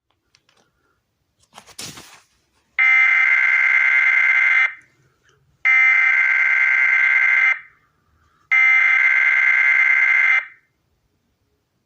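Emergency Alert System SAME header: three identical bursts of buzzy digital data tones, each about two seconds long with short gaps between, encoding a NOAA Weather Radio Required Weekly Test. A brief crackle comes just before the first burst.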